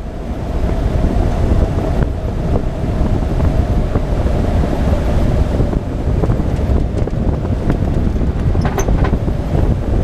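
Stinson light aircraft's piston engine and propeller running steadily at high power during a climb, a deep rumbling drone with a steady held tone, heard inside the cabin with wind noise on the microphone.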